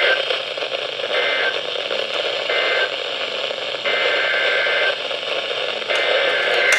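Weather radio receiver sounding the EAS/SAME digital data tones over steady radio static: two short bursts, then two longer bursts, each about a second apart. The short bursts mark the end-of-message code of the warning just read, and the longer ones are the header of the next alert.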